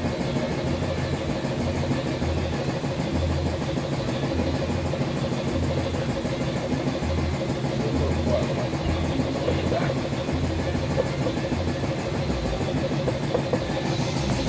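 A motor running steadily, with a constant hum and a pulsing low rumble.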